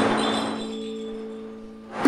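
Rammerdrum music: a few low notes ring on and fade away, and a new note is struck right at the end.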